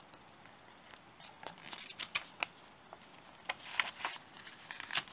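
Paper instruction leaflet being unfolded and handled: crisp rustling and crinkling in irregular clusters, starting about a second in.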